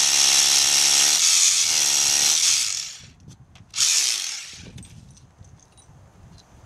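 Rotary hammer drill boring into stone. It runs loudly for about two and a half seconds, its pitch dipping about a second in and coming back up, stops, then runs again briefly about four seconds in.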